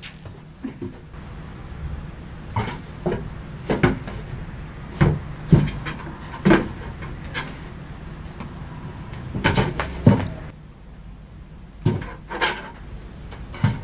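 A cat pawing and pushing into a cloth hung over a sliding closet door: irregular knocks and thumps against the door panel, the strongest around the middle and again about two-thirds of the way in.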